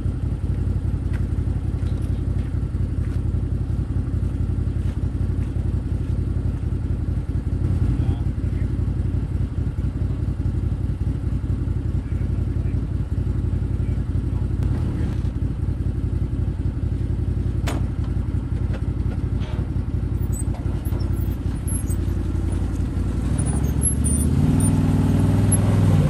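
Can-Am side-by-side UTV engine idling steadily, then revving up near the end as it starts pulling the loaded trailer.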